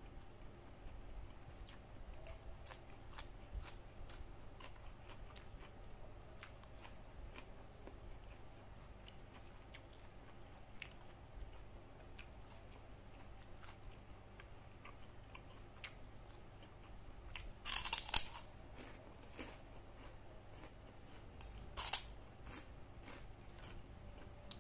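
A person chewing food close to the microphone, with frequent small wet mouth clicks, and two louder crunchy bites about eighteen and twenty-two seconds in.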